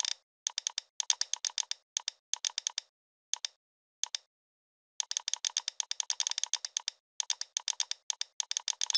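Rapid clicking of a computer keyboard and mouse, in quick bursts of many sharp clicks separated by short silences.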